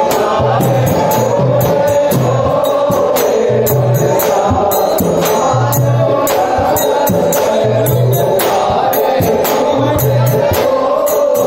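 Men singing a chant-like song together into microphones over a PA, with rapid jingling hand percussion and a low drum beat that comes back every couple of seconds.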